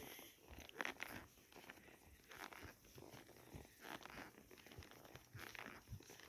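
Faint, irregular crunching steps of a ridden horse walking, with soft rustling between them.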